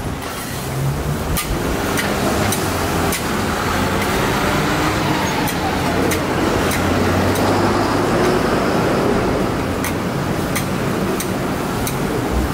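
Metal spatula scraping and tapping on a large hot teppan griddle covered in sizzling okonomiyaki, over a steady low rumble. Sharp metal clicks come irregularly, about once a second.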